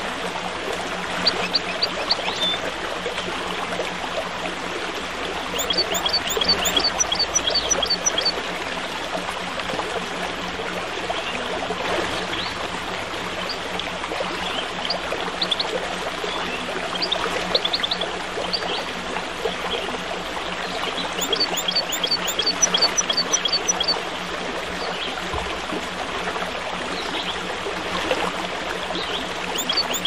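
A stream babbling steadily, with small birds chirping in bouts of quick, high repeated notes every few seconds.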